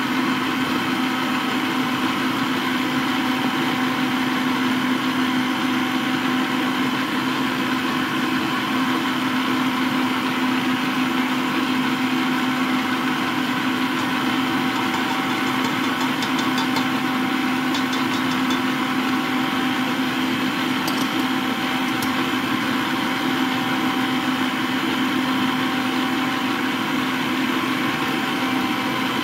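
Frigidaire stand mixer running at a constant speed, its motor giving a steady hum as it beats cake batter in a stainless steel bowl.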